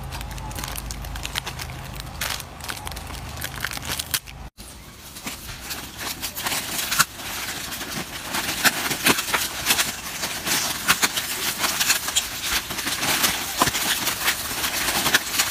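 Plastic snack wrappers crinkling and crackling in irregular, rapid clicks as monkeys grab and tear at the packaged cakes. The sound breaks off for a moment about four and a half seconds in, then comes back denser.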